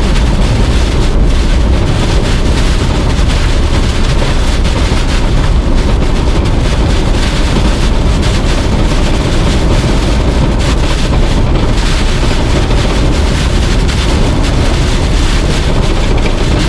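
Hurricane-force wind blowing hard on the microphone: a loud, continuous rushing noise with a heavy low rumble.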